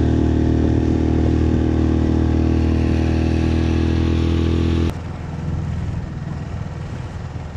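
Dinghy outboard motor running steadily at speed, a constant engine drone. About five seconds in the sound cuts abruptly to a quieter steady rumble with more water and wind noise.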